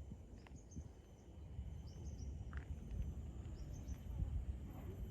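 Tropical forest ambience: insects droning steadily on a high note, with short high bird chirps repeating every second or two and a low rumble underneath.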